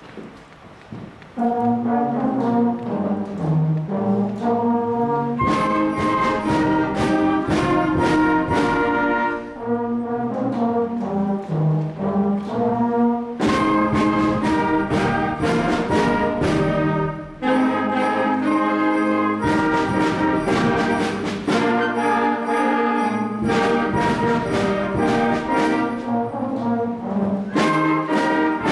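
School concert band playing, led by brass (trombones, horns, trumpets) in loud accented chords. It comes in after about a second and a half of quiet.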